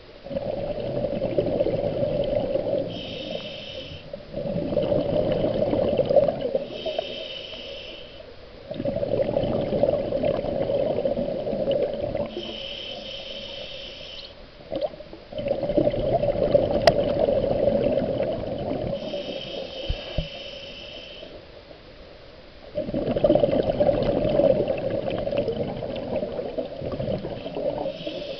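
Scuba diver breathing through a regulator underwater: a short hiss on each inhale, then a longer bubbling rush of exhaled air. Five slow breaths.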